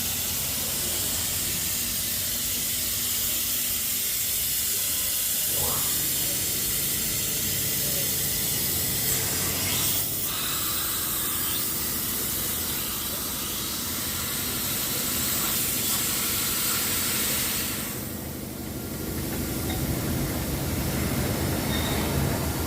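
Steady hiss of compressed air at a tyre repair, easing off briefly near the end.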